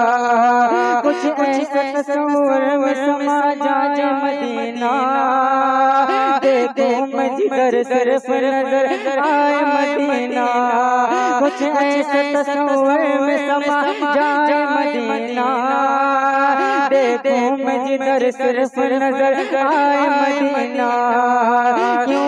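A man singing a naat, an Urdu devotional song, unaccompanied into a microphone, drawing out long held notes that waver in ornamented runs and step to new pitches every few seconds.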